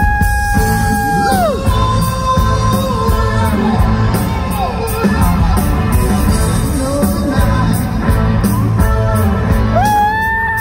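Live rock band with singing: a long held high vocal note ends about a second and a half in, shorter sung lines follow over drums and guitars, and another long held high note starts near the end. Heard from the audience in a large hall.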